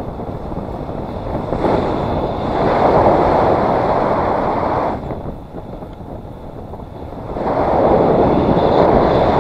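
Wind rushing over an action camera's microphone in paraglider flight. It swells about two seconds in, drops away around five seconds, and rises loud again near the end.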